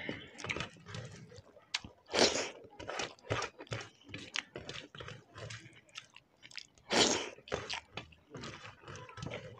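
Close-miked eating of rice with tomato chutney by hand: wet chewing and mouth smacks mixed with small clicks of fingers working the rice on steel plates. Two louder, longer mouth sounds come about two seconds in and again about seven seconds in.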